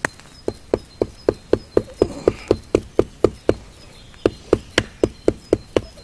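Hammer blows on a Nedfoss full-tang bushcraft knife, driving its blade into a tree trunk. There are quick, even knocks about four a second, each with a short ring: about a dozen, a short pause, then about seven more.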